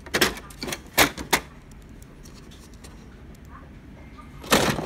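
Plastic clicks and knocks from an HP Laser MFP printer's covers and toner cartridge being handled: a few sharp clicks in the first second and a half, then a louder clatter near the end.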